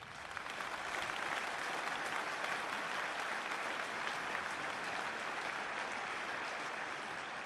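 Audience applauding, swelling up over the first second, then holding steady and easing off slightly near the end.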